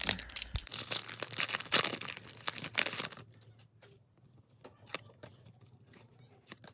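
A trading card pack's wrapper being torn open and crinkled for about three seconds, then only faint scattered clicks.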